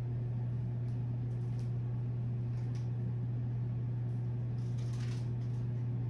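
A steady low hum, even in level throughout, with a faint brief rustle about five seconds in.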